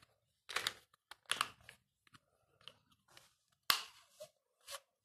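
Plastic parts of a backpack water gun (pressure pichkari) being handled: a few short crinkly rustles and knocks, with one sharp click a little under four seconds in.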